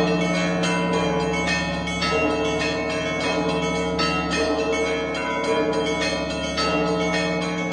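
Russian Orthodox church bells rung by one bell ringer in a zvon: a quick, steady pattern of smaller bells struck several times a second over a deep bell that sounds about every two seconds.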